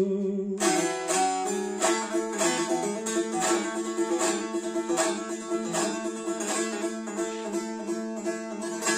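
Bağlama (Turkish long-necked lute) playing an instrumental passage of plucked notes, about two strong strokes a second, the strings ringing on and fading away near the end.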